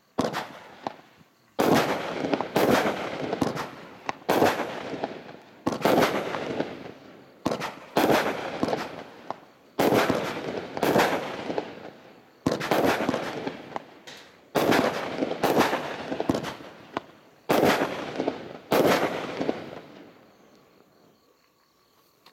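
SkyCrafter 'Snow Flake to Avalanche' Cat 2 medium-noise firework barrage firing shot after shot: sharp bangs about once a second, each trailing off, stopping about twenty seconds in.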